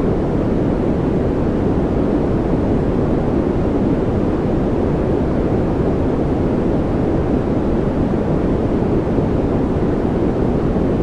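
Continuous white-noise track: a steady, unchanging rushing noise, deeper than hissy, played as a masking sound for focus and calm.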